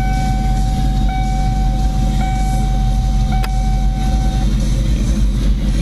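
Ford Mustang GT's V8 idling, heard from inside the cabin. Over it, a steady high electronic tone sounds in roughly one-second stretches with short breaks and stops a little over four seconds in. There is a single click about three and a half seconds in.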